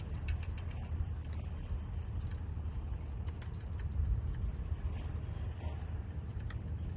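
Light, irregular metallic jingling and clicking over a steady low rumble, with a continuous high-pitched whine.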